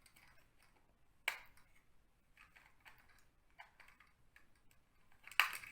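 Faint clicks and taps of small plastic toys being handled, with a sharp click about a second in and another near the end.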